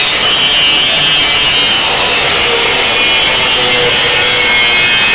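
Angle grinder cutting into metal: a steady, loud grinding noise with a high whine through it.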